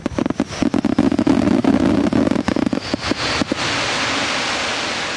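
Fireworks finale: a rapid barrage of sharp bangs and crackling shell bursts for about three and a half seconds. The bangs then stop and a steady wash of crowd applause takes over, fading slowly.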